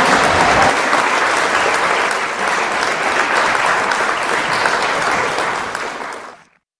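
Large audience applauding, the clapping fading out and stopping shortly before the end.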